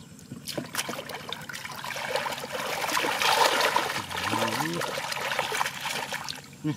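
Hands splashing and churning through shallow muddy water while groping for fish by hand, a dense run of small splashes and trickles. It starts about half a second in and grows louder toward the middle.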